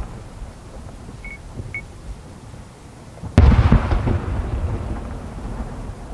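Distant aerial firework shell bursting about three and a half seconds in: a sudden boom followed by a long rumbling echo that slowly dies away.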